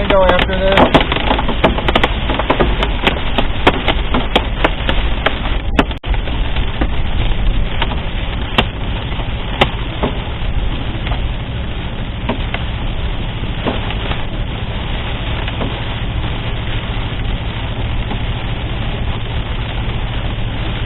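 Pea- to marble-size hailstones striking a moving vehicle as sharp irregular clicks over steady rain and road noise. The clicks come thick at first and thin out after about ten seconds as the vehicle leaves the hail core.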